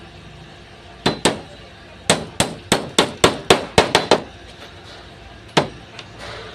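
Hammer driving a nail into wood: two taps, then a quick run of about nine blows in two seconds, then a single blow near the end.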